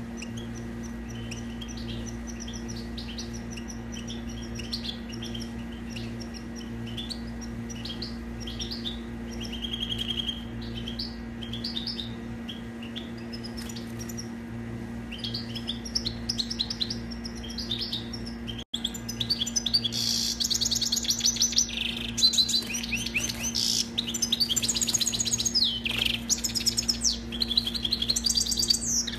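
European goldfinch singing a rapid, continuous run of twittering notes and trills, louder from about two-thirds of the way through, with a momentary dropout just before. A low steady hum runs underneath.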